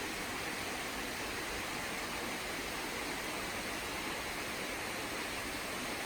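Steady, even rush of a waterfall, unbroken and without change.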